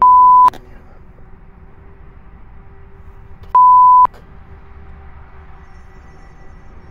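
Two loud, half-second electronic bleeps about three and a half seconds apart, each a single steady tone: a censor bleep dubbed over the audio. Between them a faint, steady low drone.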